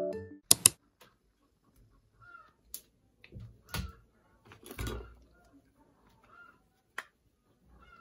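Background music fades out right at the start, then two sharp clicks. After them come scattered soft knocks and rustles of small items being handled at a wooden wardrobe shelf.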